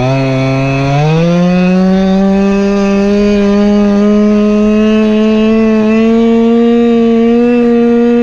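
Go-Ped scooter's small gas engine running under way. Its revs climb sharply about a second in, then hold high and creep slowly up as it cruises.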